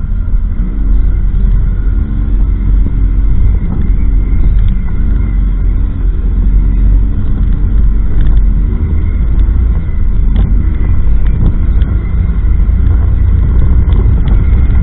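Off-road vehicle engine running under way, its pitch rising and falling with the throttle over a steady low rumble.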